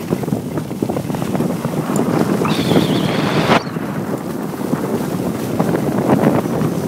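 Wind buffeting the microphone of a handheld phone on a fast ski run, over the crackling scrape of skis sliding across packed snow. A louder, hissier scrape comes about halfway through.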